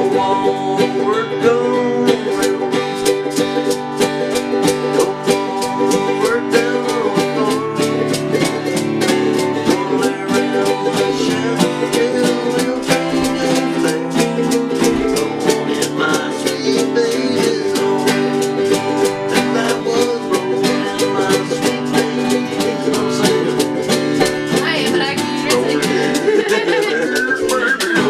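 A band playing a tune on plucked string instruments, with fast, even picking throughout.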